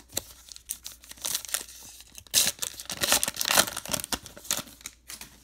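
Trading card pack wrapper being torn open and crinkled by hand, an irregular crackle that is loudest in the middle and fades out near the end.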